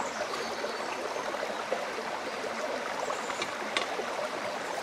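Creek water flowing steadily, with a couple of faint clicks.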